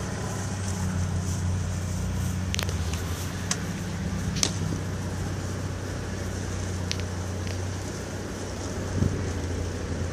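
Steady low hum of an idling car engine close by, over street traffic, with a few short sharp clicks scattered through.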